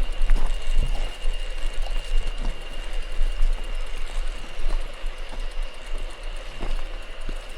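Mountain bike riding on a gravel forest road: a low rumble of wind on the microphone, with the tyres crunching and the bike knocking over bumps now and then, and a steady high thin buzz throughout.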